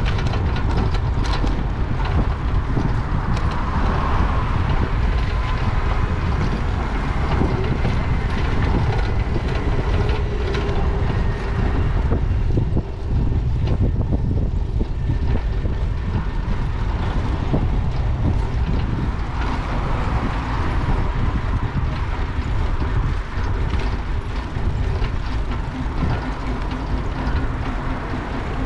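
Steady rushing wind and road noise from riding a bicycle with an action camera, a constant low rumble, with street traffic faintly in the background.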